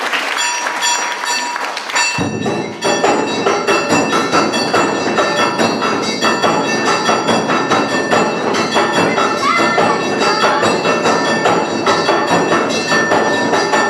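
Awa Odori dance music: rapid, steady two-beat rhythm of taiko drums with ringing metallic gong strokes. The drums come in about two seconds in.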